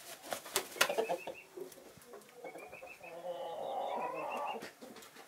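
Backyard chickens: a brief flurry of wing and feather rustling in the first second as a rooster stretches its wing, then a drawn-out low chicken call for about a second and a half past the middle. Rows of short, high chirps sound several times behind them.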